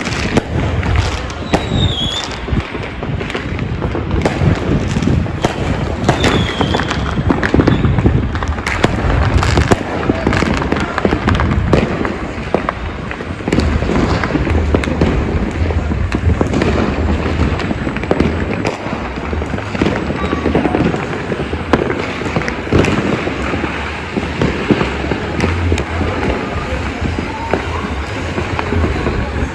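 Dense, continuous fireworks and firecrackers: overlapping cracks, pops and bangs with no break, and a couple of short whistles in the first few seconds.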